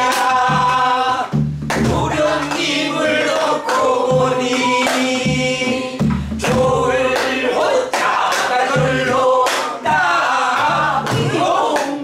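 A group singing a Korean Namdo folk song together to the beat of several sori-buk barrel drums. Deep drumhead thumps and sharp stick clacks on the wooden shells mark the rhythm under the voices.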